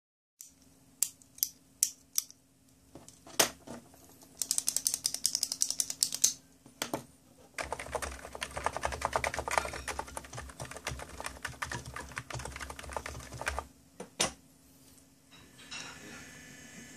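Computer keyboard being typed on: a few single key clicks, a fast run of taps, then about six seconds of steady typing over a faint low hum. Near the end a faint steady high-pitched whine comes in from the desktop speaker.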